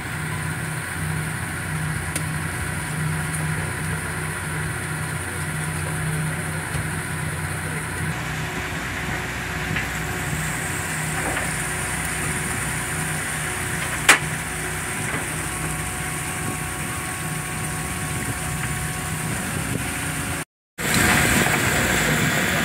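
Steady low engine hum, with a single sharp knock about two-thirds of the way through. The sound cuts out briefly near the end and comes back louder.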